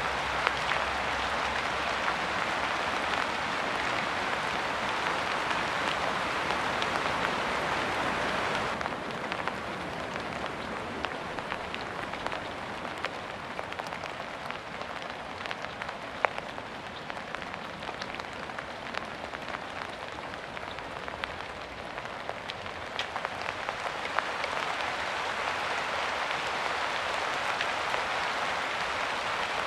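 Steady rain falling, with individual drops ticking sharply through the hiss. It eases suddenly about nine seconds in and picks back up near the end.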